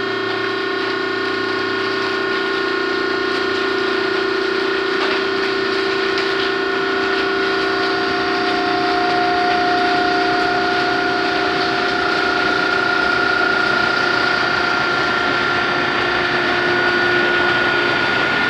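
Plastic baler's motor running steadily: a whine of several held tones over a hiss.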